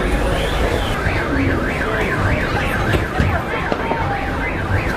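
An electronic siren-like alarm warbling rapidly up and down, about three to four times a second, from about a second in, over a steady din of fireworks and firecrackers crackling.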